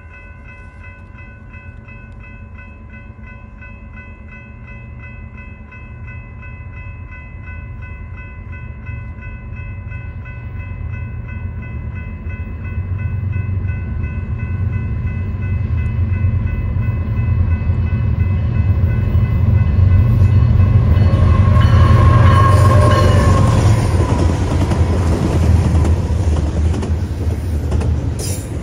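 Grade-crossing bells ringing in a steady pulsing rhythm while a BNSF double-stack intermodal freight train with diesel locomotives approaches, its rumble growing steadily louder. The locomotives pass loudest about twenty seconds in, followed by the container cars rolling by.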